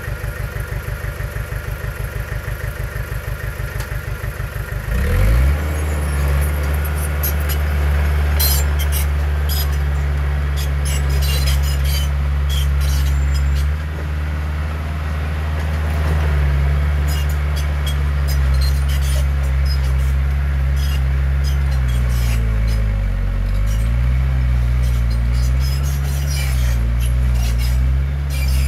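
Heavy diesel engine of earthmoving machinery idling with an even pulse, then revving up about five seconds in to a loud, steady working run, with scattered clanks and clatter over it. Near the end the engine note dips and wavers as the load changes.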